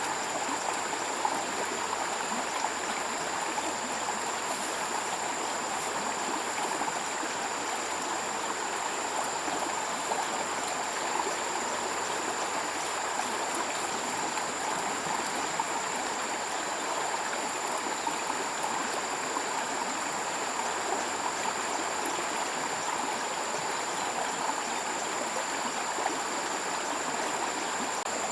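Stream water running steadily, with a thin steady high tone alongside.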